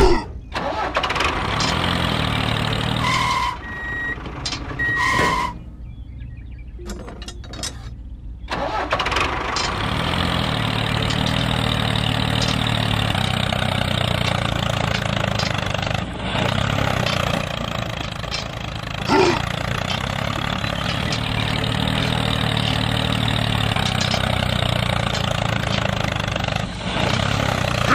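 Tractor engine running steadily, dropping to a quieter stretch for a couple of seconds about six seconds in, then running on. Two short beeps sound about three and five seconds in.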